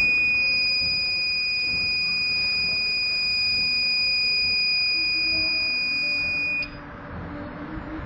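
Inverter's built-in alarm buzzer sounding one continuous high-pitched beep, which cuts off suddenly about six and a half seconds in.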